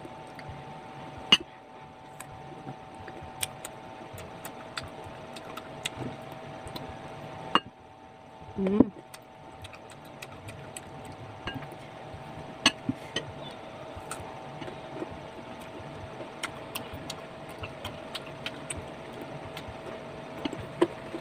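Eating sounds: scattered sharp clicks and crunches as green mango slices are picked from ceramic bowls and chewed, over a steady faint hum. A brief vocal sound comes about nine seconds in.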